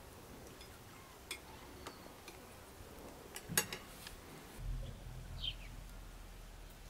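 Scattered faint clinks of dishes and cutlery at a table, the sharpest just past halfway. In the second half a short high bird chirp falls in pitch over a low steady rumble.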